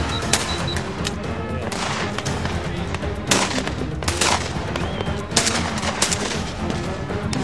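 Shotgun shots, about six sharp reports fired irregularly over several seconds, some followed by a short echoing tail, over background music.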